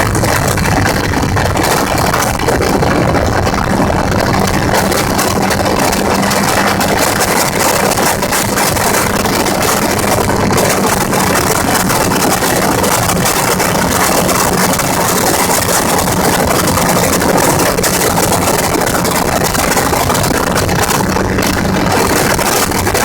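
Gyrocopter engine and propeller running loudly at a steady, unchanging pitch.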